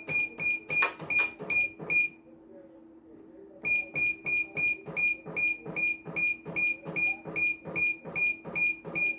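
Control panel of a CNY computerised embroidery machine beeping repeatedly as its key is held to jog the hoop into position, about three short high beeps a second. The beeps stop for a second or two a little after two seconds in, then start again and carry on, over a steady low hum.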